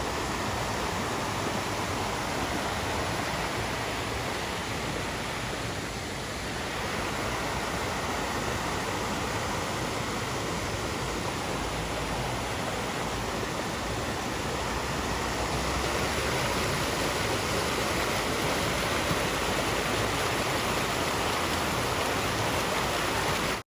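Rushing water of a mountain stream or waterfall: a steady, loud rush.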